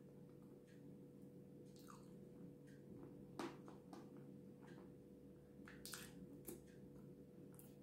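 Faint wet mouth sounds of eating soft cream: a few scattered lip smacks and sticky clicks as cream is sucked and licked off the fingers, the clearest about three and a half seconds in. A low steady hum lies under them.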